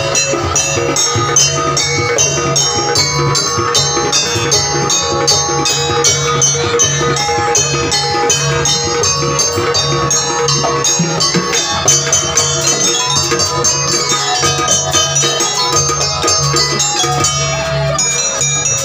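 Jaranan gamelan music: rapid ringing metal strikes over a steady pulsing low beat.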